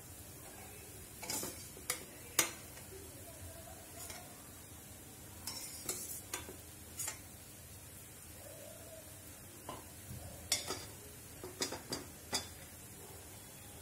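A steel slotted skimmer clinking and tapping against a steel pot and a steel plate, a dozen or so irregular sharp clinks in three clusters, as fried jalebis are lifted out of sugar syrup. Under it, ghee sizzles faintly with jalebis frying in it.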